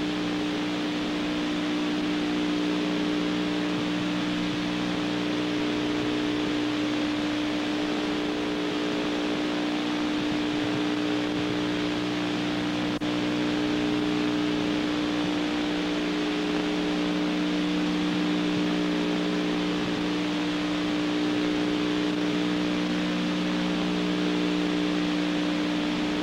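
Steady hiss with a low hum of several held tones on the open shuttle air-to-ground radio channel, with no one transmitting.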